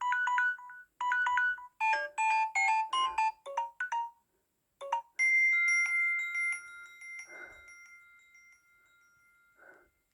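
Samsung Galaxy A3 (2016) ringtones: a short melody of quick, bright, bell-like notes for about four seconds. After a brief pause a second tone sounds once and rings on, fading slowly.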